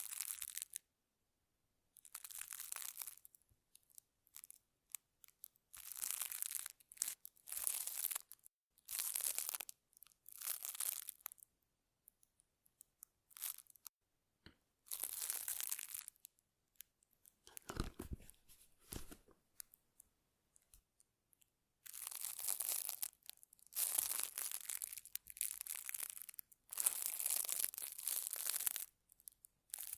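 Close-miked ASMR facial-care trigger sounds: scratchy, rustling bursts a second or two long with silent gaps between them, coming closer together near the end.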